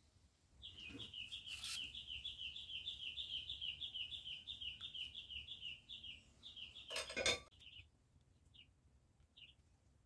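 A small bird chirping in a fast, even series of about four or five high notes a second for some five seconds, then a few scattered chirps. A light knock, then a louder sharp clatter about seven seconds in, from handling tools and the aluminium can parts on the work surface.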